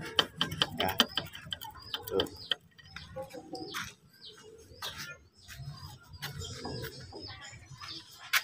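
Birds chirping in short calls, with scattered sharp clicks and light knocks.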